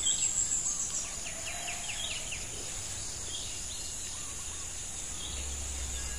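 Outdoor ambience of insects, a steady high-pitched buzz, with a bird's short chirps about a second or two in. A few light handling clicks near the start come from work on the brush cutter's gear case.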